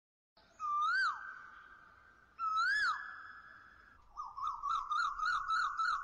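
Bird-like whistle sound effect: two rising-and-falling whistled calls, each trailing a held tone, then a quick warbling series of short rising chirps, about three a second.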